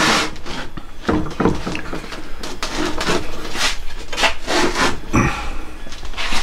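Hands handling a homemade slow-speed grinder on a wooden workbench, its motor not running: a run of irregular rubbing and scraping noises and light knocks, with a heavier knock about five seconds in.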